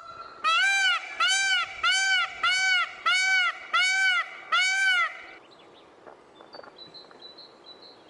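An animal calling: a run of seven short calls, each rising and then falling in pitch, about one and a half a second, stopping about five seconds in. Faint high chirps follow.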